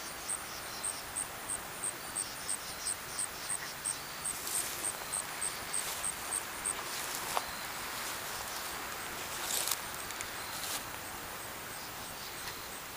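An insect chirping at a high pitch in an even rhythm, about three chirps a second, dropping away after about six seconds. A few brief rustling swishes, the loudest about two-thirds of the way through.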